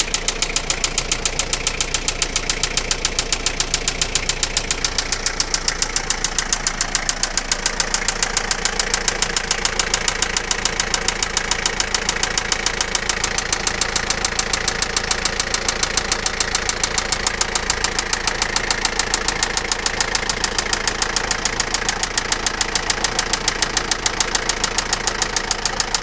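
Toyota Lucida engine idling with a sharp, regular knock, about three to four strikes a second, that keeps steady throughout.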